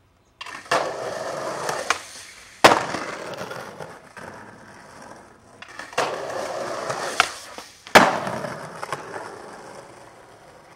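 Skateboard wheels rolling over stone paving slabs, with two loud, sharp cracks of the board hitting the ground, near three seconds and eight seconds in, and a few lighter clacks.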